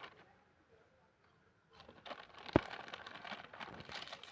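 A potato-chip packet crinkling and chips being crunched, starting about two seconds in, with one sharp crack about half a second later.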